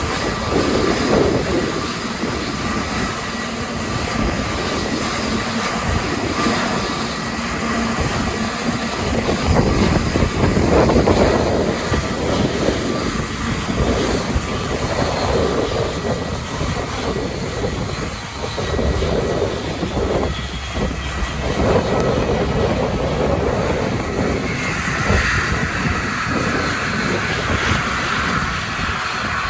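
Jet engines of an Airbus A320neo, CFM LEAP-1A turbofans, running with a deep rumble and a steady whine, while wind buffets the microphone in gusts. A higher whine comes in about 25 seconds in.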